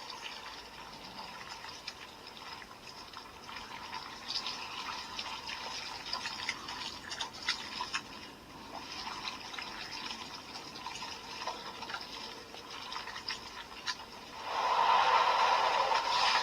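CSM Century King Sun Driver toy belt playing its long Creation King transformation sound effect through its built-in speaker: a rushing, liquid-like noise with scattered clicks, turning louder about 14 seconds in.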